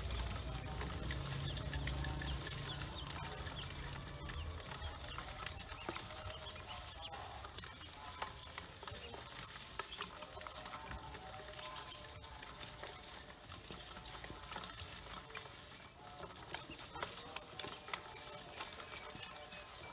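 A bowlful of newly hatched ducklings peeping continuously, many short high calls overlapping, with a low rumble over the first few seconds.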